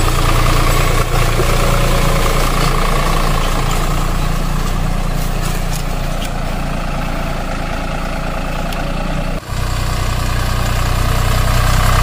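Tractor engine idling steadily with a low rumble. It drops out for an instant about nine and a half seconds in, then carries on slightly changed.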